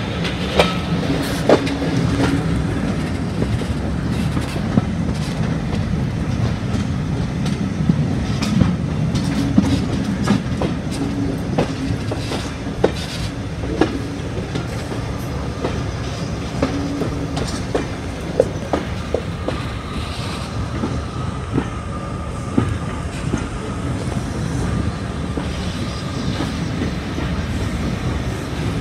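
Railway carriage wheels running over jointed track, heard from aboard the moving train: a steady rolling rumble with irregular clicks and clacks over rail joints and pointwork. From about two-thirds of the way through, a faint steady wheel squeal joins it as the train takes a curve.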